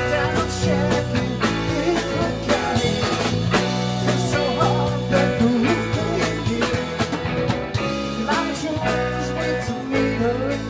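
Live rock band playing: electric guitars, electric bass, keyboard and drum kit in a steady groove, with a lead line wavering in pitch above the band.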